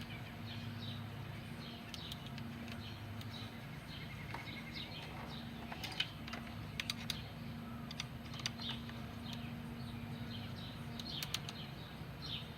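Scattered light metallic clicks and clinks of a socket wrench being worked on a bracket bolt, over a steady low hum, with birds chirping in the background.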